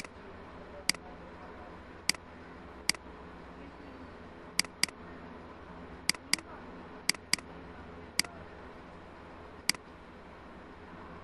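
Computer mouse button clicking: about a dozen sharp single clicks and quick double-clicks, over a faint steady background hum.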